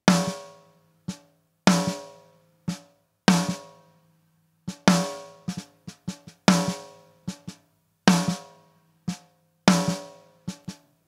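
Snare drum top-mic track played solo through the Xtressor Nuke distressor-style limiter plugin: loud snare cracks about every 1.6 s with quieter hits in between, each ringing out briefly.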